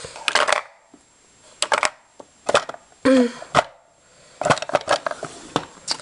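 Plastic lipstick and lip gloss tubes and a small box being handled, giving an irregular string of sharp clicks and clacks.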